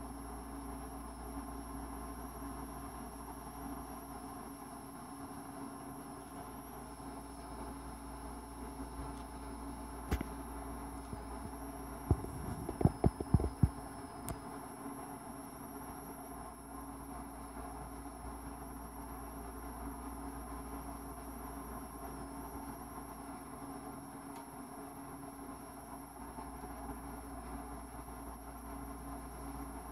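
Steady background hum and hiss with a constant faint high whine, broken about twelve seconds in by a quick run of half a dozen low thumps.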